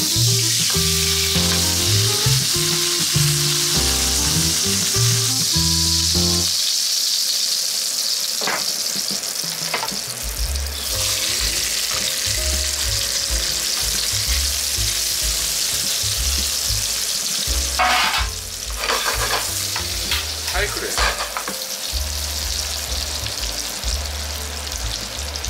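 Chicken, bacon, garlic cloves and mushrooms sizzling in hot oil in a frying pan, a steady hiss with a few clinks of metal tongs and spatula against the pan. There are louder bursts of crackling a little over two-thirds of the way through.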